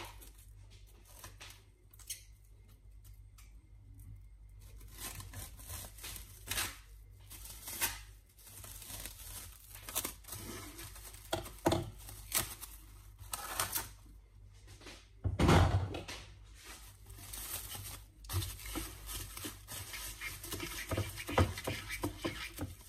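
Plastic cling film being pulled off its roll, torn and crinkled as it is stretched and pressed over a glass bowl: irregular crackling and rustling, with a louder burst partway through.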